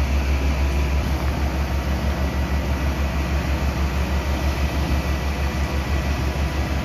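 Fire truck engine running at idle: a steady low rumble with an even, rapid throb.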